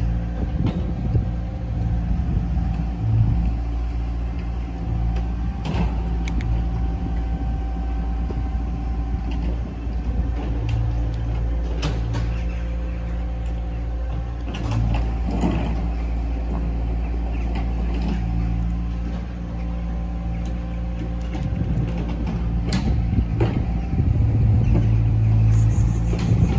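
A nearby motor running steadily with a low, even hum, with a few short clicks scattered over it.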